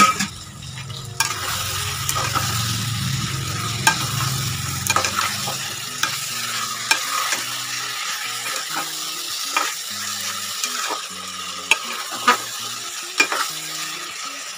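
Metal spatula stirring and scraping mutton curry and potatoes in an aluminium pressure cooker over a steady sizzle of the masala frying, with sharp clinks of the spatula against the pot every second or so. The meat is being fried (bhuna) in the spices before water is added.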